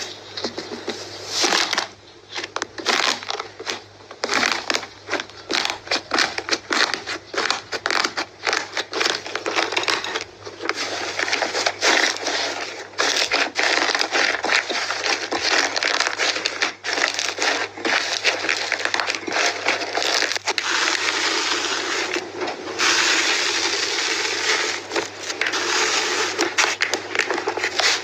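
Hands pressing, squeezing and kneading slime: a dense run of crackling, popping and squishing. It breaks off briefly about a third and again about four-fifths of the way through, where one slime gives way to the next.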